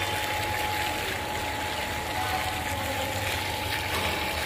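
Water gushing from a stainless-steel tank's drain pipe and splashing onto a concrete floor, running fast now that the tank's mixer motor is stopped. A steady high tone sounds throughout.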